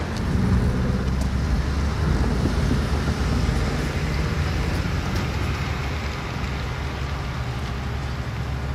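Low, steady rumble of distant vehicles, easing slightly toward the end.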